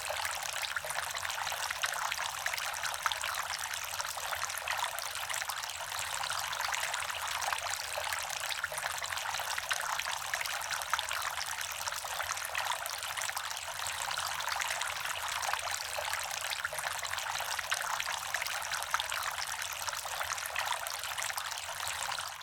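Outdoor two-tier resin flower fountain running, water trickling and splashing steadily down its tiers into the basin.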